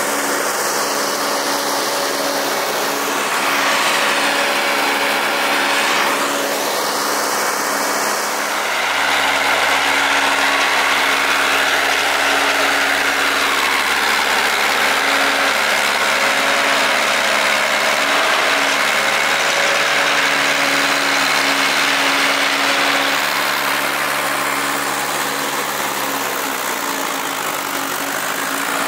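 LKT 80 forestry skidder's diesel engine running steadily, its pitch dipping and then rising again near the end.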